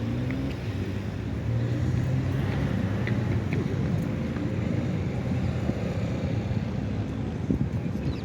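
A low, steady engine rumble with a faint hum in it, with a few faint short chirps above it.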